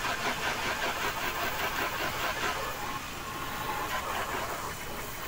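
Water spray gun set to a spray pattern, its jet hissing steadily against a wet car body. It gets slightly quieter about three seconds in.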